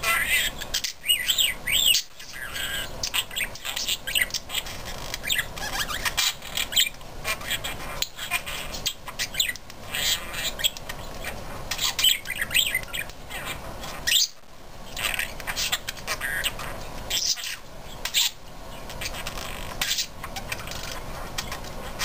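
Pet budgerigars chattering and squawking: a steady stream of short, high chirps and warbles.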